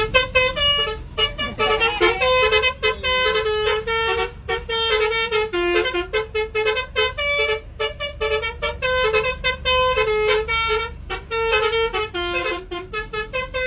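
A telolet-style multi-tone vehicle horn playing a quick melody of short tooting notes that jump between several pitches, over a low steady rumble.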